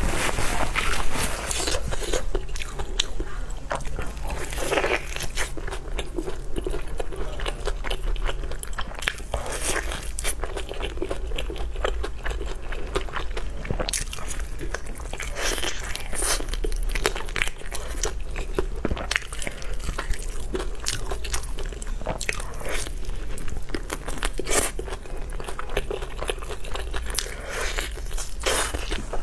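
Close-miked eating: crunching bites into glazed fried chicken drumsticks and chewing, a dense run of irregular crackles and clicks.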